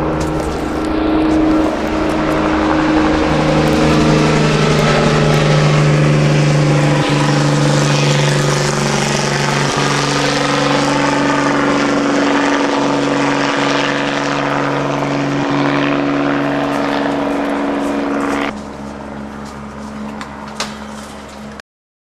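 Helicopter flying low overhead, a steady loud drone of engine and rotor whose pitch slides down and back up around the middle. It drops in level about eighteen seconds in and cuts off abruptly near the end.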